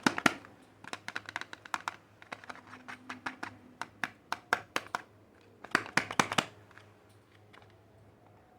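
Soap wrapping being handled and unwrapped by hand: quick runs of crinkling, crackling and light clicks from the packaging, with a dense flurry near the start and another about six seconds in.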